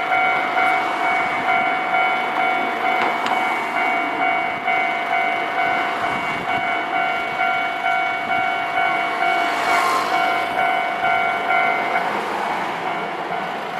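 Japanese railway level crossing alarm ringing, a steady repeating electronic bell strike made of several high tones. A brief rush of hissing noise comes about ten seconds in, and one of the tones drops out near the end.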